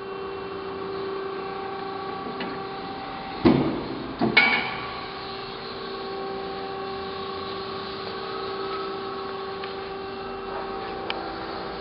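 Hydraulic power unit of an Amada RG-50 CNC hydraulic press brake running with a steady hum, with two sharp knocks about three and a half and four and a half seconds in.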